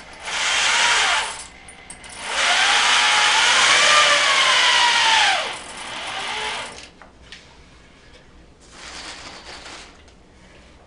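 Power drill running in three bursts: a short one, a longer one whose motor pitch rises and then falls away as it slows, and a quieter short one near the end.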